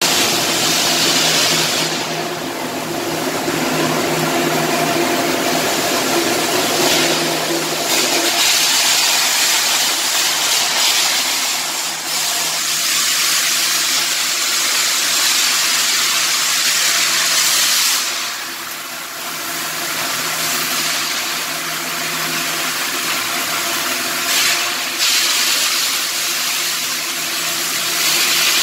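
Stick (SMAW) arc welding: the arc gives a steady hiss that drops out briefly a few times between runs, over a steady machine hum.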